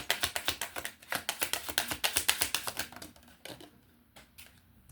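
A deck of Kipper fortune-telling cards being shuffled in the hands: a quick run of crisp card clicks, about ten a second, for some three seconds, then a few single taps.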